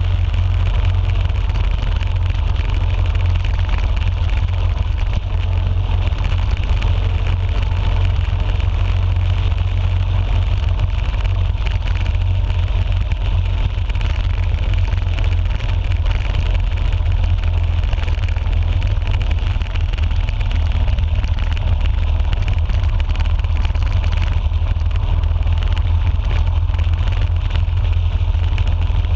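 Motorcycle engine running steadily at cruising speed on the open road, with a deep low rumble under a constant rush of wind and road noise.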